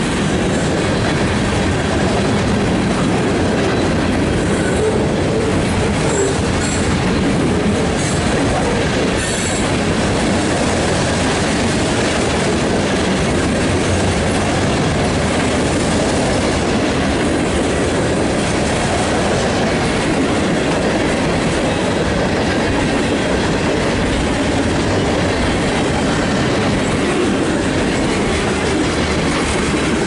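Freight train's covered hopper cars rolling past close by: a steady, loud rumble of steel wheels on the rails.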